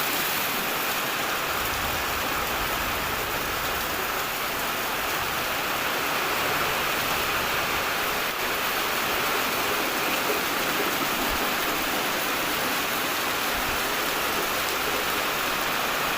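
Steady rain falling, an even hiss of drops that doesn't let up.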